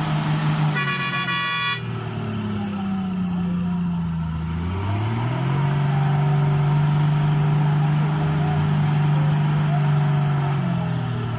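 Truck engine running and revving: its pitch sags, climbs again about halfway through and then holds steady. A horn sounds once for about a second near the start.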